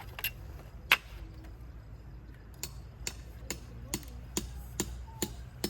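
Hammer blows: two single sharp strikes, then from about two and a half seconds in a steady run of strikes about two a second.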